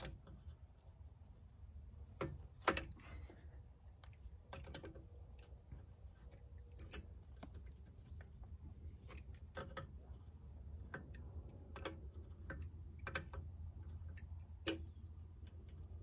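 Scattered light metallic clicks and clinks of a hand wrench and other hand tools against the steel pin and bracket of a hydraulic cylinder pivot, coming irregularly a few at a time with gaps between.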